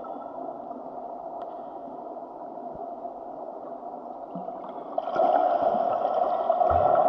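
Muffled underwater water noise: a steady, dull rushing that grows louder and brighter about five seconds in.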